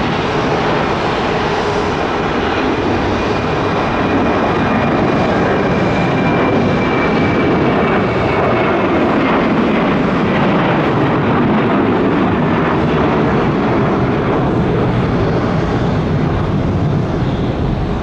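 Boeing 737 twin jet engines at takeoff thrust, a steady loud roar through the takeoff roll and lift-off. A thin high whine drops slightly in pitch as the jet passes.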